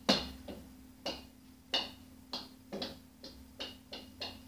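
A run of sharp taps or knocks, about two a second, loudest at the start and then a little fainter.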